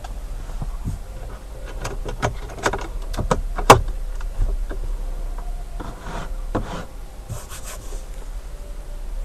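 Scattered light clicks and taps from a hand handling a car's interior trim and air vent, the loudest a single sharp click a little before halfway through, over a steady low hum.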